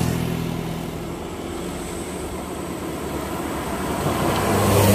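Road traffic on a hill: loaded diesel cargo trucks climbing toward the roadside with a steady engine drone and tyre noise, getting louder about four seconds in as a car passes close.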